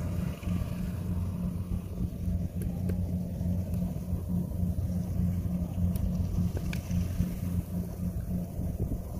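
Compact rice combine harvester's engine running steadily as it cuts ripe paddy, a continuous low hum.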